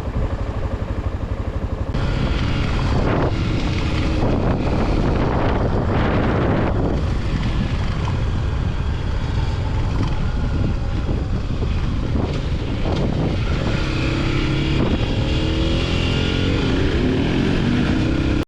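Motorcycle engine running as the bike is ridden, with wind noise on the microphone; the engine note rises near the end.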